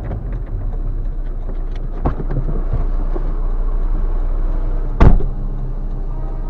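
Steady low rumble of a stationary car's engine heard from inside its cabin. A light knock comes about two seconds in, and a loud, sharp slam about five seconds in: a car door being shut.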